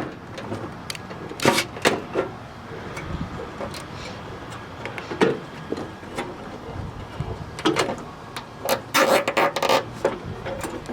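Scattered, irregular knocks and clicks, with a few louder clusters of clatter, from tools and car parts being handled during hands-on work on a car.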